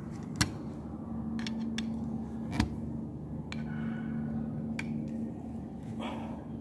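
Screwdriver driving a small screw into the metal button-clamp (catcher) assembly of a Juki button-sewing machine: scattered sharp metallic clicks and ticks, two of them louder, over a steady low hum.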